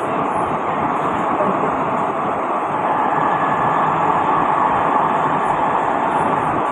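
Interior running noise of an SMRT Kawasaki–Sifang C151B train travelling at speed: a loud, steady rush with a faint steady whine.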